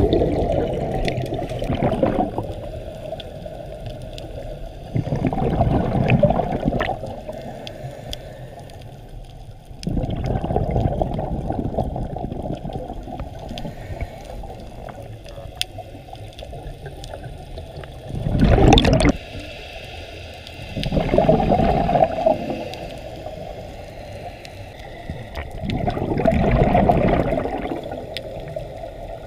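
Scuba diver's exhaled bubbles gurgling out of the regulator in bursts about every four to five seconds, heard underwater through the camera housing, with a low steady rush of water between breaths. One burst about two thirds of the way in is short and sharp.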